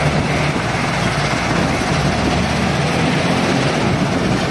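Steady din of heavy machinery: a JCB wheel loader's diesel engine working as it loads crushed sand (crusher dust) into a tractor trolley, over a stone crusher plant running with its conveyor.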